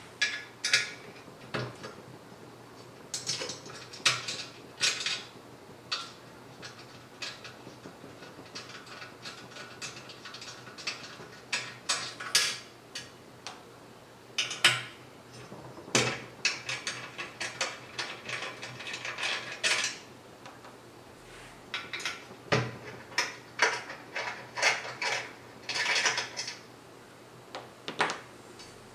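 Small metallic clicks and clinks of a hex key working grub screws out of the corner brackets of an aluminium-extrusion frame, with little screws set down on the table. The clicks come singly and in quick runs of ticking, busiest in the middle and near the end.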